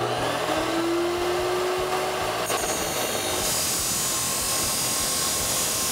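DeWalt abrasive chop saw running, its motor whine rising in pitch as it spins up. The cut-off wheel bites into the 3-inch stainless steel exhaust pipe about two and a half seconds in, and from about three and a half seconds a harsher grinding hiss comes as it cuts through.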